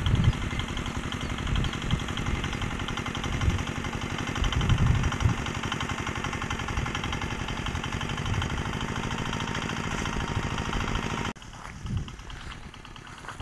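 Homemade mini tractor's engine running steadily as it drags hay. About 11 seconds in the sound cuts off abruptly to a quieter stretch with a couple of low thumps.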